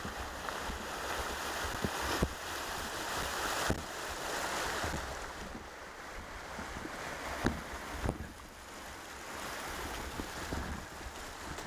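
Shallow stream running over stones, a steady rushing that swells and eases. A few sharp knocks from the mountain bike against rocks come through it, with wind rumbling on the microphone.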